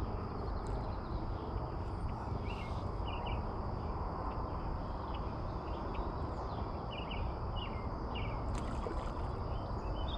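Outdoor ambience: a steady, high insect drone and short bird chirps scattered throughout, over a steady low rush of noise.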